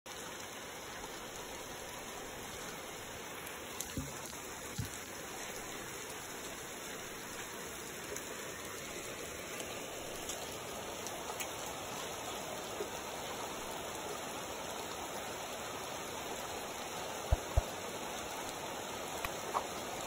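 Steady, even hiss like wind or rushing water, with a couple of faint low knocks about four seconds in and two sharp, louder knocks close together near the end.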